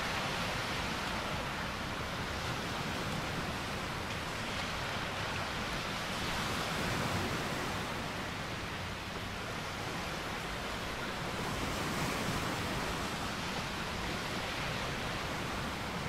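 Surf of small waves breaking and washing up a sandy beach: a steady rushing wash that swells and eases gently every few seconds.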